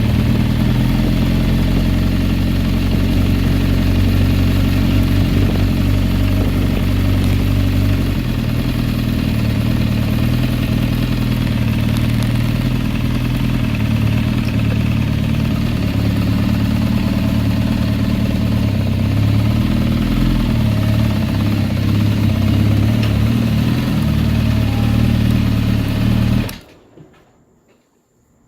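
2007 Kawasaki Ninja ZX-10R inline-four engine running steadily with the ticking and rattling noise it has had since a rebuild, which a new cam chain, new cam chain tensioners, a valve adjustment and tightened header bolts have not cured. The engine shuts off suddenly near the end.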